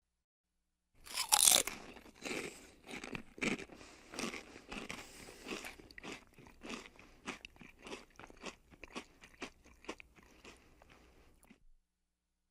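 Potato chips bitten with a loud crunch about a second in, then chewed with short crunches about two a second that grow fainter and stop near the end.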